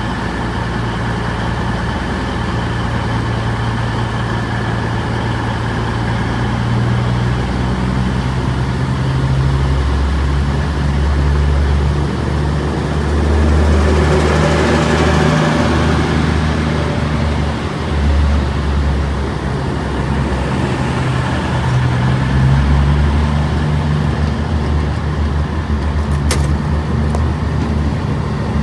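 CrossCountry Voyager diesel-electric multiple unit at a station platform, its underfloor diesel engines running with a deep, steady drone. The engine note grows stronger about nine seconds in, with a louder rush of noise around the middle.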